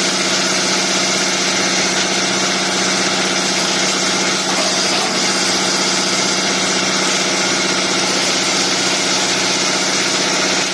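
Automatic wood chamfering and milling machine running: a steady, even machine drone with a strong pitched hum.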